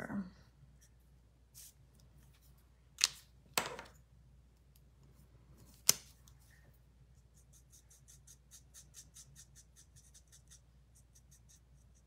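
Stampin' Blends alcohol markers being handled and used on cardstock: a few sharp clicks as markers are picked up and set down, then a run of faint, quick scratchy strokes, about five a second, as a marker tip flicks colour onto the paper.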